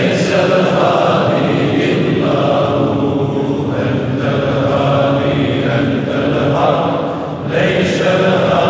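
A group of men chanting dhikr together in repeated phrases. The chant dips briefly about seven seconds in, then resumes.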